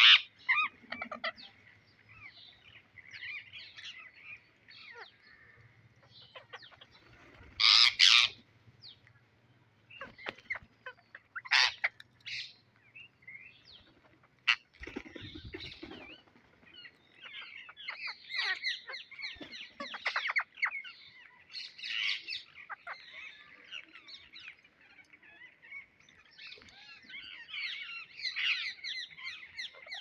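A flock of rose-ringed parakeets chattering with many short shrill calls, with louder calls standing out about eight and eleven seconds in.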